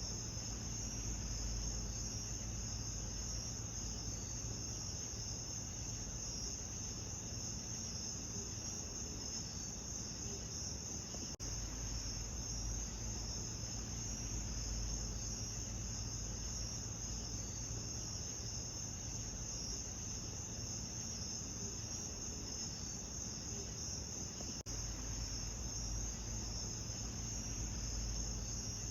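Steady chorus of night insects, a high continuous pulsing buzz over a low rumble, with two brief dropouts.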